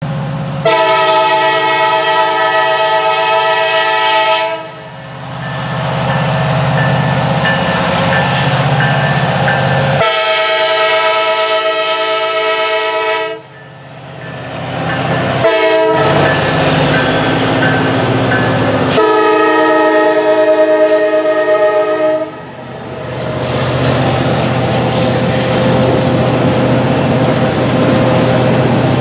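Norfolk Southern SD70ACU locomotive's Nathan K3LA chime horn blowing the grade-crossing signal, long, long, short, long, as it passes. The diesel rumbles under it, then empty coal gondolas roll by with a steady clatter of wheels on rail.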